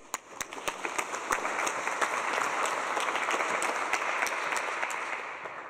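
Audience applauding. The clapping builds over the first couple of seconds, holds, then dies away near the end.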